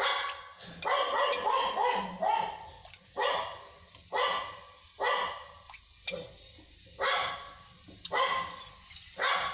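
A dog barking over and over, roughly once a second, with a quick run of barks about a second in.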